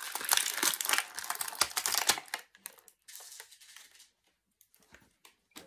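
Clear plastic packaging crinkling and crackling as a small action figure is worked free of it, loudest in the first two seconds, then fainter with a few scattered clicks.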